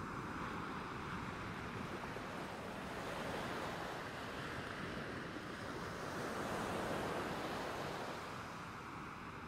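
Sea waves and wind: an even rushing that slowly swells and eases, loudest about three-quarters of the way through.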